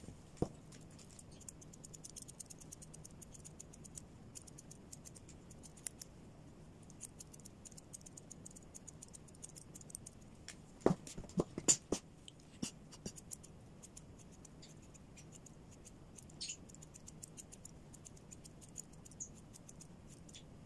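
Scissors snipping through a dog's thick coat in quick runs of small clicks, with a few louder knocks about eleven to twelve seconds in.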